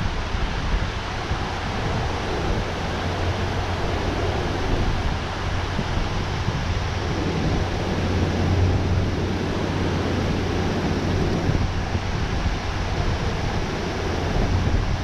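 Steady rushing of water at a dam spillway, with wind rumbling on the microphone.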